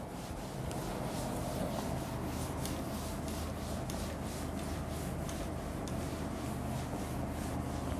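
Cloth duster wiping chalk off a blackboard in quick, irregular strokes, over a steady low hum.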